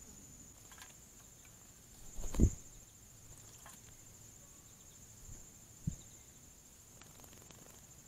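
Steady high-pitched insect trill, like a cricket's, with two or three dull low thumps; the loudest comes about two and a half seconds in.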